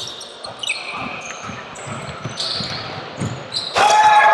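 Basketball bouncing on an indoor court during a game, with short high squeaks. A sudden loud burst of sound breaks in near the end.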